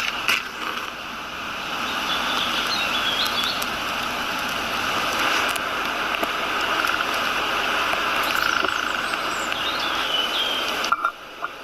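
Steady forest ambience: a dense, even hiss with bird chirps, once about three seconds in and again near nine seconds. The hiss drops off abruptly near the end.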